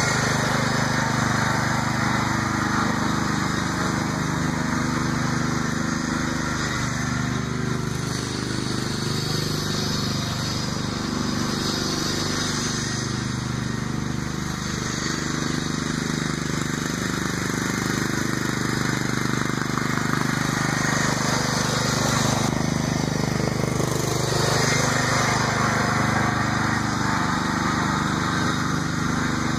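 Kohler Command 15 single-cylinder engine of a Ford New Holland LS35 garden tractor running steadily as the tractor drives across grass, fed by a converted impulse-type fuel pump.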